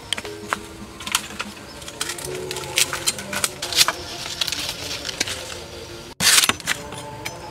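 Large knife chopping at bamboo shoots: a run of sharp, irregular knocks, with a louder rustling burst of about half a second near the end.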